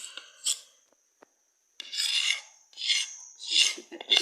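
Cuttlebone being scraped into powder by hand: a short rasp, a pause, then about three longer scraping strokes in quick succession.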